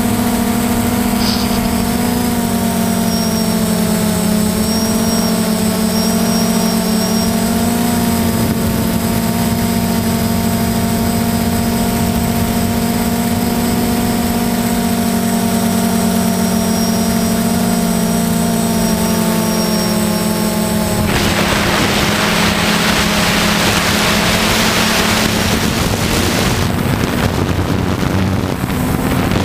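Quadcopter's motors and propellers running with a steady whine, picked up by the camera on the drone itself. About two-thirds of the way through, a broad rush of wind noise comes in over the whine for several seconds.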